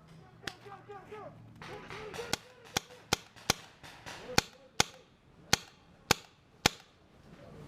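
Airsoft guns firing single shots, about ten sharp snaps at uneven intervals, with some shots a third of a second apart and others over a second apart.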